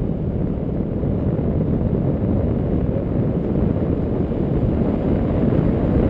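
Airflow of a tandem paraglider in flight buffeting the camera microphone: a steady, dense low rumble of wind noise.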